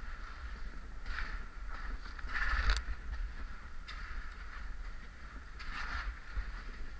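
Crawling over a gravel cave floor: shuffling and scraping in three swells, with a low handling rumble and a sharp knock a little under three seconds in.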